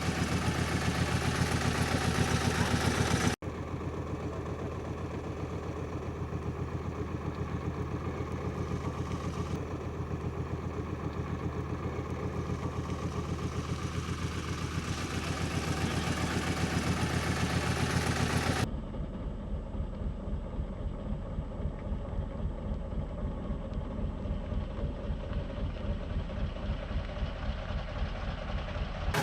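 Road roller's engine running steadily at a low, even idle. The sound changes abruptly twice, about three seconds in and past the middle.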